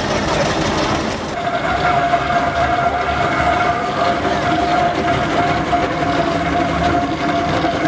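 Steam whistles of traction engines blowing together, a steady held chord of several notes that starts about a second in, over low engine rumble.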